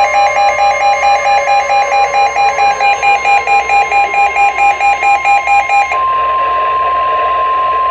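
Weather radio alert: a rapid electronic beeping alarm, about four beeps a second, over a steady single-pitch warning tone near 1 kHz, the NOAA Weather Radio 1050 Hz alarm tone that announces a new warning. The beeping stops about six seconds in, and the tone runs on alone until it cuts off at the end.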